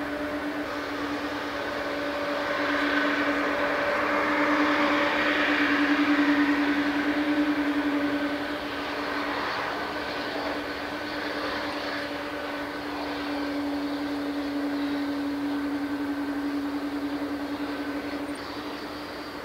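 Boeing 777-200 airliner's twin jet engines running at low power as it slows after landing and taxis off the runway: a steady hum under a rushing noise that swells a few seconds in, then eases.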